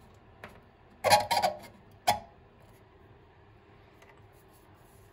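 A quick cluster of sharp plastic clicks about a second in, and one more click a moment later, as the new fill valve's refill-hose clip is handled and pressed onto the toilet tank's plastic overflow tube.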